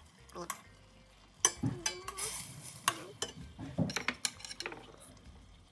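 Utensil knocking, scraping and clinking against a pan while chicken cooks, with a brief sizzle about two seconds in.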